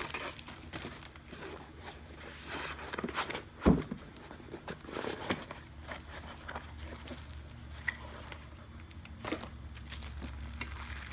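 A new go-kart clutch and its packaging being handled: scattered rustles and small clicks, with one louder thump about four seconds in, over a faint low hum.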